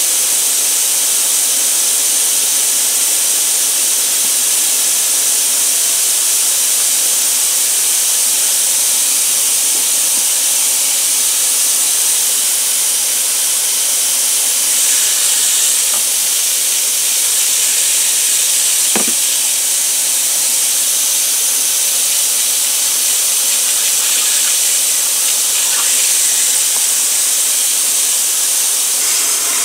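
Steady, loud hiss of rushing air, with one brief tick about two-thirds of the way through.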